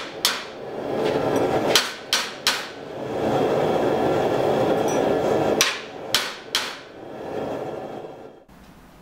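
Hand hammer striking a red-hot forged steel bearded hatchet head clamped in a vise, straightening it so the bit lines up with the eye. There are about seven blows in two groups, over a steady rushing noise.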